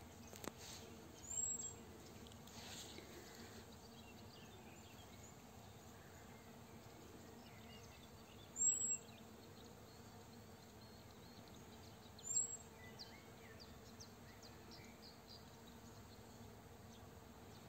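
Faint steady buzzing of honeybees foraging in flowering rapeseed. Three short, high chirps cut through it: one about a second and a half in, one near the middle, and one about twelve seconds in.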